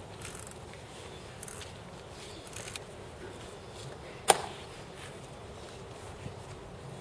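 A ceremonial Tomb guard's slow march ends in a single sharp heel click about four seconds in, as he halts and turns at the end of the mat. Before it come a few faint scuffs from his steps.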